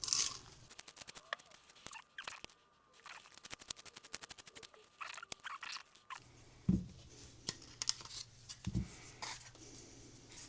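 Hand reamer being twisted into a hard plastic part, cutting with runs of rapid dry ticking and crunching scrapes. Two dull knocks in the second half.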